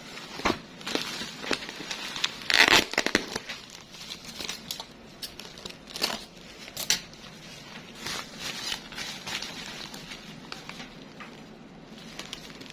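Bubble wrap and plastic parcel wrapping being handled and pulled open by hand: irregular crinkling with sharp crackles, loudest in a burst about two and a half seconds in.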